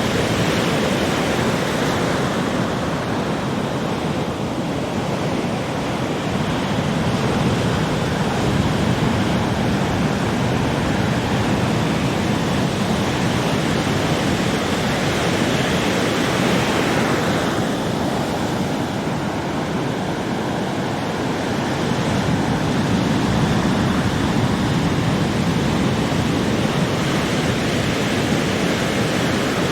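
Ocean waves breaking and washing on a beach: a steady surf roar that swells and ebbs slowly, with a brighter wash of water about halfway through.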